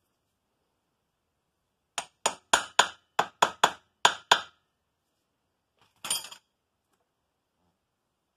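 Nine sharp, ringing metal-on-metal strikes in quick succession, about four a second, then a short clinking rattle a little later.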